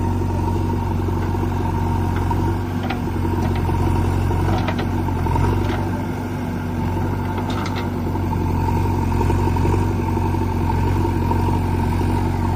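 Diesel engine of a backhoe loader running steadily at work, with a few light clanks scattered through it.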